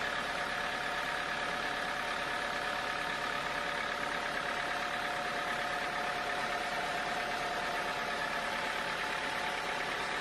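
Sawmill machinery running steadily: a constant motor drone with a few steady whining tones, no change in pace.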